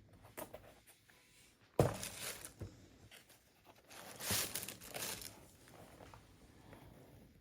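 Crinkling and rustling of packaging paper while a pair of sneakers and their box are handled, with a sharp knock about two seconds in and a longer rustle around the fourth and fifth seconds.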